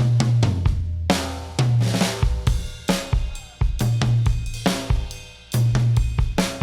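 Blues band playing an instrumental passage: drum kit accents with cymbals land about once a second, together with punchy ensemble chords over held bass notes.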